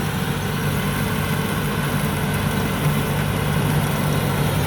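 A 260-horsepower combine harvester's diesel engine running steadily with an even low hum.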